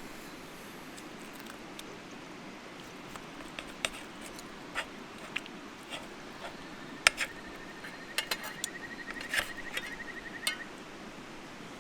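Scattered clinks and knocks of camp cookware and utensils being handled over the steady low rush of a mountain stream. A rapid high rattle runs for a few seconds in the second half.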